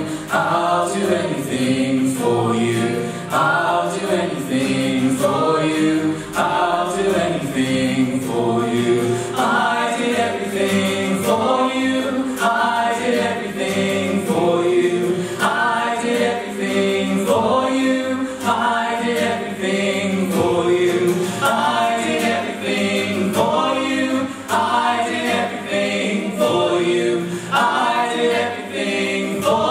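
Three voices singing together in harmony, a woman's and two men's, with an acoustic guitar strummed under them.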